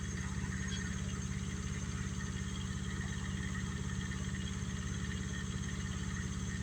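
An engine running steadily at a constant low speed, with no change in pitch or level.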